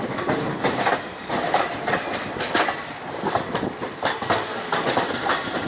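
Passenger train coach wheels clattering over rail joints and points, heard from the open coach door: a quick, irregular run of clicks and knocks over a steady rumble.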